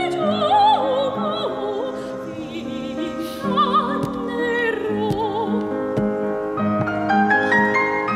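A woman singing with a wavering vibrato, accompanied on a grand piano; near the end the notes climb in steps.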